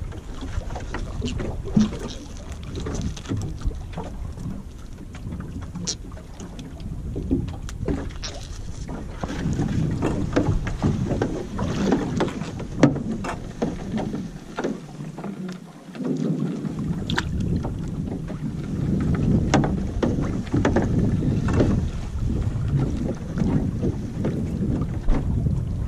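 Wind rumbling on the microphone and water sloshing against the hull of a small open boat, with scattered light knocks. The wind rumble eases for a couple of seconds past the middle.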